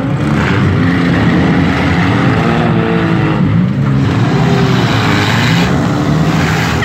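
Several front-wheel-drive demolition derby cars' engines running and revving together, loud and continuous, their pitch rising and falling several times as the drivers accelerate and back up.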